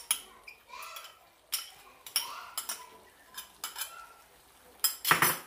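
Metal spoon clinking and scraping against a nonstick wok while cream is stirred into a thick curry with a silicone spatula: scattered short clicks, then a longer, louder scrape about five seconds in.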